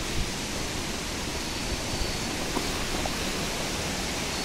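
Rain-swollen mountain river rushing over rocks below a bridge: a steady, even rush of white water.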